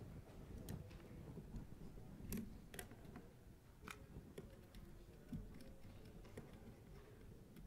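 Near silence: quiet room tone with a handful of faint, irregularly spaced clicks.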